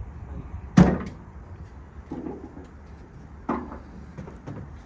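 Knocks and clunks from a motorcycle being handled: one loud knock about a second in, a softer one about three and a half seconds in, and a few light clunks between.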